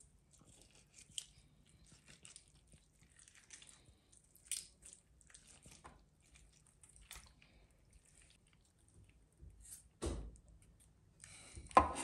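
Faint wet squishing and small knife clicks as raw bull testicles are handled and their membranes trimmed over a stainless steel tray. A couple of louder dull thuds near the end.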